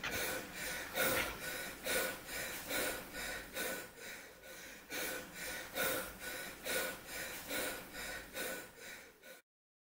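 A man breathing hard and fast, panting in quick, even breaths of about two a second, then stopping suddenly near the end.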